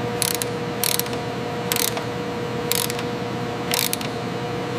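Mechanical clamp machinery: short ratcheting clacks about once a second over a steady machine hum, as the primary clamps engage.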